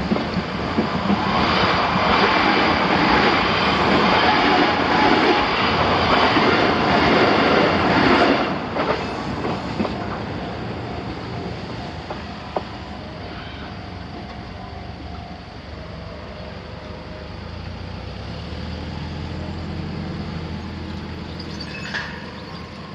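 Kintetsu Minami-Osaka Line electric train running over a level crossing: loud wheel-on-rail noise for about eight seconds, which then drops off and fades as the train moves away.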